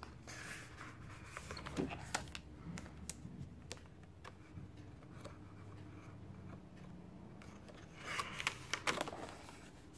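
Paper handling: pages of a spiral-bound desk calendar being turned over, with light rustles and small clicks of the wire binding. A page flips about two seconds in, and a louder flurry of rustling and clicks comes near the end as the next page is turned.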